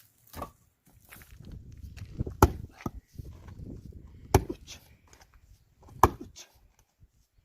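Axe chopping firewood: three sharp wooden strikes about two seconds apart, with low shuffling noise between them.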